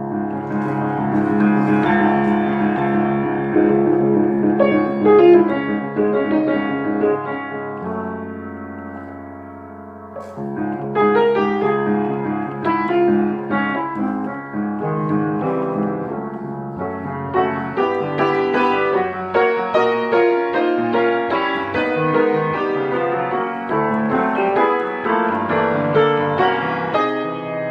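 Piano music, notes and chords played in a flowing line. The playing thins to a soft held chord about eight seconds in, then picks up again.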